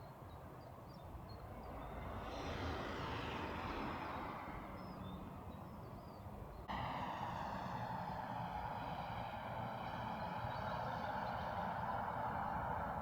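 An aircraft passing overhead, its rushing noise sliding down in pitch. About seven seconds in it cuts suddenly to a louder, steady rush.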